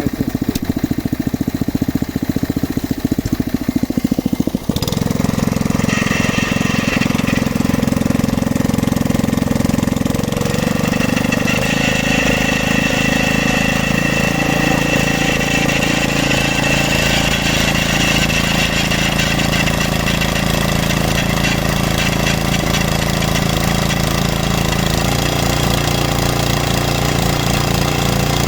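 A geological exploration drilling rig's engine running with a fast low pulsing, changing to a steadier, heavier note about five seconds in. A high mechanical whine joins soon after and grows stronger about halfway through.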